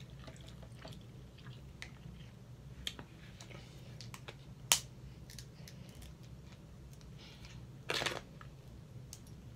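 Boiled snow crab legs being broken apart by hand: scattered small shell clicks and cracks, with a sharp snap a little under five seconds in and a short crunch about eight seconds in, over a faint steady hum.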